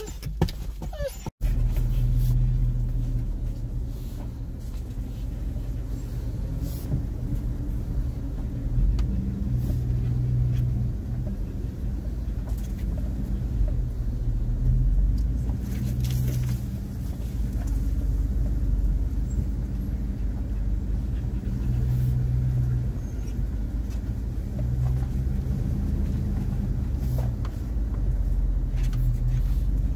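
Chevrolet Silverado pickup's engine running at low revs as the truck crawls along a rough trail, a steady low rumble that swells and eases, with brief clicks now and then. The sound starts after an abrupt cut a little over a second in.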